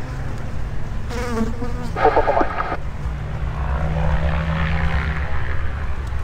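Light aircraft's piston engine and propeller running, a steady low drone with higher engine tones that swell and bend in pitch through the middle.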